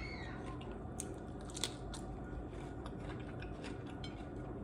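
Close-miked biting and chewing of a crisp beef tostada and taco, with short crunches; the sharpest come about a second and a second and a half in.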